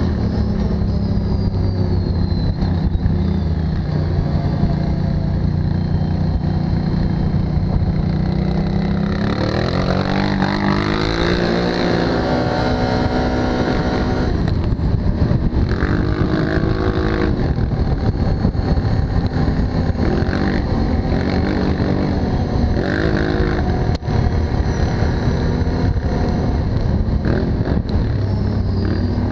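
Can-Am Outlander Max 1000 ATV's V-twin engine running under way. It holds a steady note for the first several seconds, then rises and falls in pitch several times as the throttle is opened and eased off.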